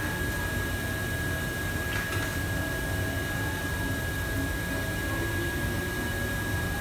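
Steady mechanical drone of a commercial kitchen's extraction hood and fans, a constant high whine over a low hum.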